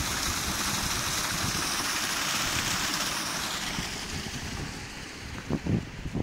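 Pig slurry gushing from a slurry pump's steel outlet pipe into a tank of slurry: a steady rushing splash that fades after about four seconds. A few dull thumps come near the end.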